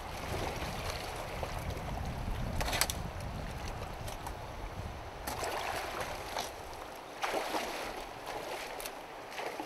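Shallow river water running, with wind buffeting the microphone as a low rumble that dies away about seven seconds in, and a few brief splashes in the water.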